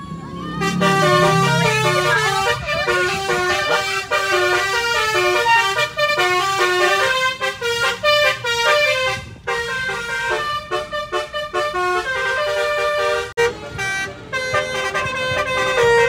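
Basuri multi-tone musical car horn (telolet) playing a quick melody of short stepped notes, often several tones sounding together, with brief breaks between phrases.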